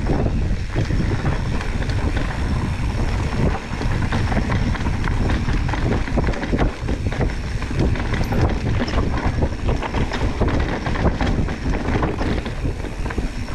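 Wind buffeting a GoPro's microphone over the rumble of a ProPain Tyee enduro mountain bike rolling over a rough trail, with many small knocks and rattles from the bike.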